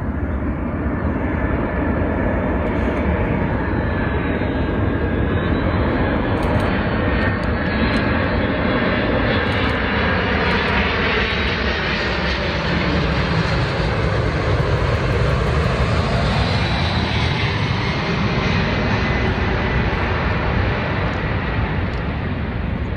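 Jet airliner's engines flying low overhead on landing approach, a loud steady jet noise that swells and shifts in tone as it passes, fullest about halfway through.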